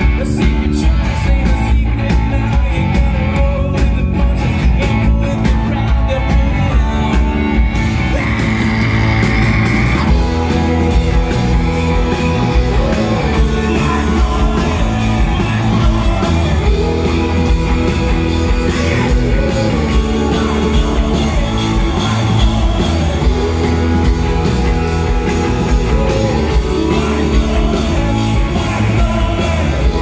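Rock band playing live: a male lead singer singing over electric guitars, bass guitar and a drum kit, loud and unbroken.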